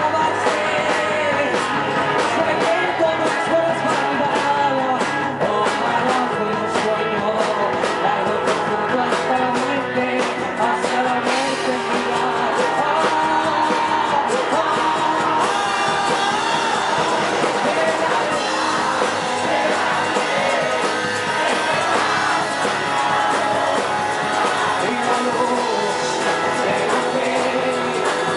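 Live rock band playing: a singer at the microphone over strummed acoustic guitar and a drum kit.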